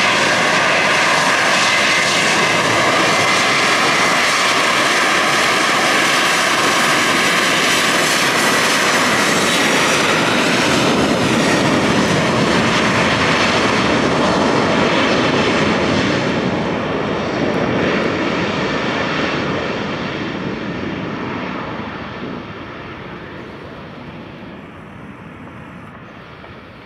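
Boeing 737 twin jet engines at takeoff power during the takeoff roll: a loud, steady noise with a high whine over it. The whine fades after about eight seconds, and the whole sound dies away over the last ten seconds as the airliner speeds off and climbs out.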